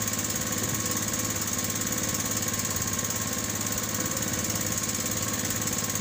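Small engine running steadily with a fast, even beat.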